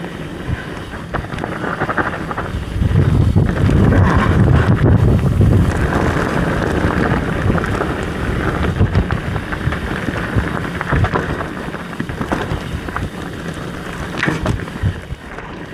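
Mountain bike running downhill over a rocky trail: wind buffeting the action camera's microphone, tyres rumbling over rock and the bike rattling with scattered knocks. The rumble is heaviest from about three to six seconds in.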